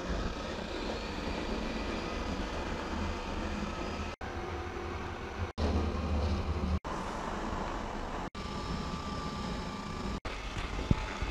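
Robot vacuum cleaner running on a hardwood floor: a steady whirring hum with brush and suction noise. It drops out briefly several times, and the rumble is heavier for about a second in the middle.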